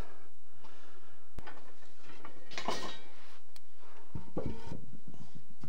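Light handling noises of cookware: one sharp click about a second in, then two short spells of clattering and scraping, over a steady low hum.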